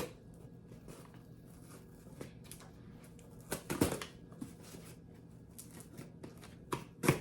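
Scattered scrapes, rustles and short tearing sounds of hands working at thick packing tape on a cardboard box.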